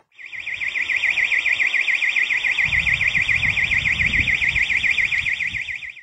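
Intruder alarm's external siren box sounding: a loud, high-pitched electronic siren sweeping rapidly up and down, the sign that the alarm has been triggered. It starts suddenly and cuts off suddenly at the end.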